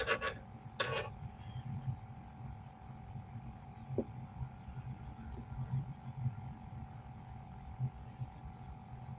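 Steady faint hum over a low, uneven rumble, with a soft click about four seconds in.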